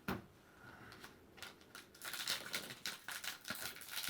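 Foil booster-pack wrapper crinkling and trading cards being handled. There is a sharp click just after the start, then from about halfway a busy run of small crinkles and clicks.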